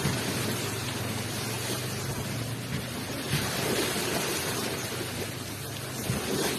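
Ocean waves rushing onto the shore: a continuous hiss of surf that swells a little past the middle.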